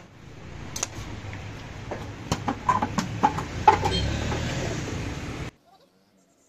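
A hammer taps a screwdriver against the steel oil pan of a Suzuki Mehran engine to break the pan's seal, giving a string of sharp metal knocks, most of them in the first half, over a steady workshop noise that cuts off abruptly near the end.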